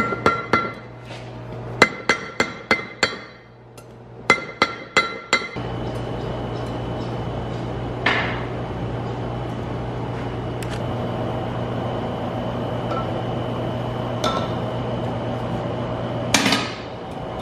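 Hand hammer striking a glowing steel ring on a steel cone mandrel, in three quick bursts of ringing blows over the first five seconds or so. After that comes a steady hum with a faint high whine, from the coal forge's blower, and a few single metal clinks.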